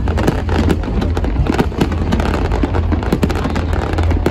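Fireworks display: a dense run of bangs and crackling, several a second, over a continuous low rumble.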